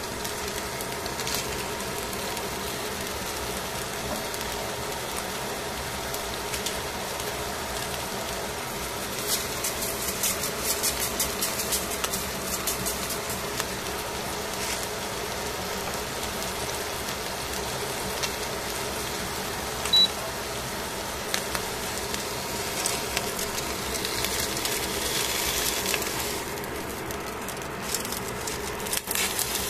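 Whole sardines cooking on aluminium foil in a pan, sizzling over a steady hum, with spells of crackling pops partway through and again later.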